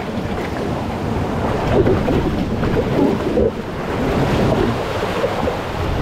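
Water rushing and splashing steadily around an inflatable raft sliding down a rafting water slide, with wind buffeting the chest-mounted microphone.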